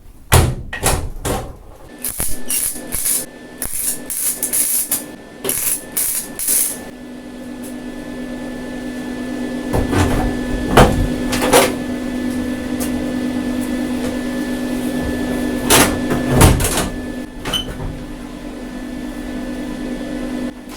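A series of sharp knocks and clattering, then a small motor starts about seven seconds in and hums steadily, with a few more loud knocks over it.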